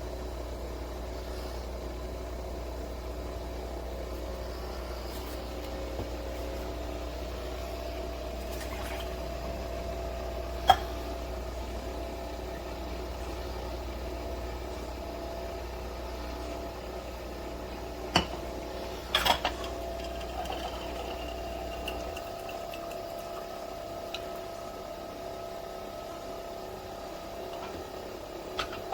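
Nespresso Vertuo Next capsule machine brewing a cup: a steady motor and pump hum, with a low drone that cuts off about two-thirds of the way through. A few sharp clicks come near the middle.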